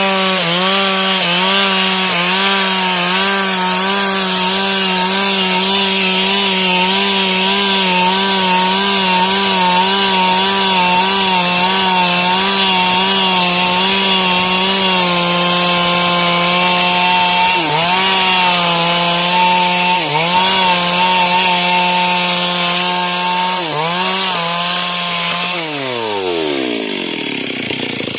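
Stihl MS 382 two-stroke chainsaw running at full revs while cutting through dry wood, its pitch wavering under load and dipping briefly three times. Near the end the engine winds down sharply as the throttle is released.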